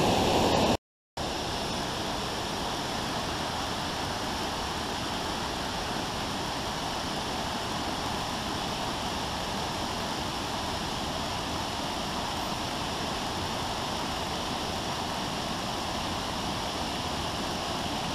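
Steady rush of running water, with no break in its flow. About a second in it drops out for a moment and comes back quieter and more even.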